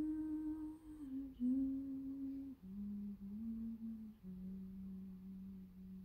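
A person humming a slow tune of a few held notes that step down in pitch, the last note held the longest.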